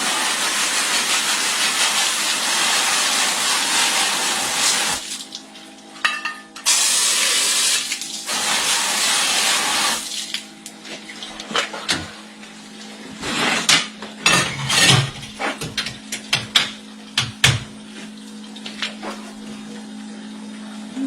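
Water spraying in two long spells over a steady machine hum, followed by a run of metallic clanks and knocks.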